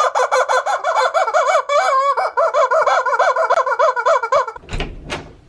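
Toy chicken sounding a fast, warbling clucking call that runs for about four and a half seconds, then cuts off, followed by two short sharp knocks.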